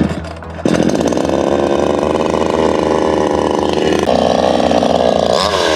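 Garland Indiana 8 gasoline chainsaw running loudly at speed, starting abruptly about half a second in; its pitch shifts once about four seconds in, and near the end it rises and falls rapidly over and over.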